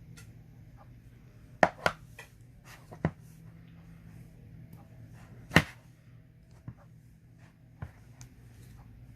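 Slime being worked by hand, giving about six sharp pops and clicks. The loudest come about a second and a half in and again near the middle, over a faint steady low hum.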